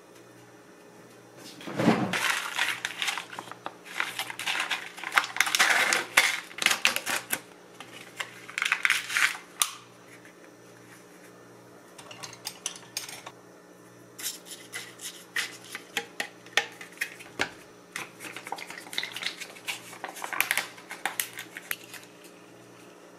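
Handling of a plastic yogurt cup with a granola topping and a plastic spoon: irregular clicking, rustling and tapping of plastic in two long stretches, with a faint steady low hum underneath.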